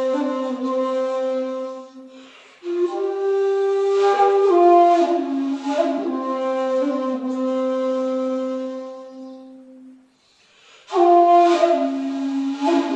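Solo 2.8 jinashi shakuhachi, a long handmade bamboo flute, playing a honkyoku: long breathy held notes that step and bend in pitch. The playing breaks for a breath about two seconds in and again about ten seconds in, with a new phrase starting near the end.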